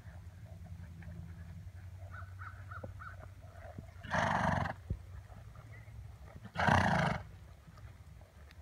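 A ridden horse snorts twice, blowing hard through its nostrils: once about four seconds in and again about two and a half seconds later, each lasting about half a second.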